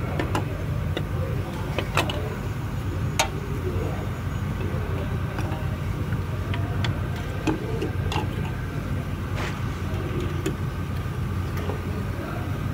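Scattered clicks and knocks of hands and tools working on hoses and fittings around a Camry Hybrid's electric water pump, over a steady low hum. The two sharpest clicks come about two and three seconds in.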